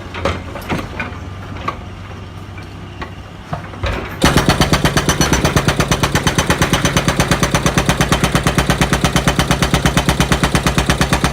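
An excavator's hydraulic breaker hammering in a fast, even rhythm of about seven blows a second, starting abruptly about four seconds in. Before that, only the excavator's diesel engine hum with a few scattered knocks.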